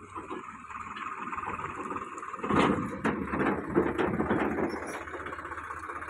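Farm tractor's diesel engine running steadily under load while pulling a loaded trailer. It grows louder and rougher about two and a half seconds in.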